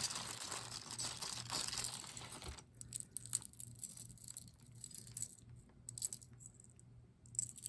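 Plastic bags crinkling as costume jewelry is handled for the first couple of seconds, then scattered light clicks and clinks of metal brooches being picked up and set down.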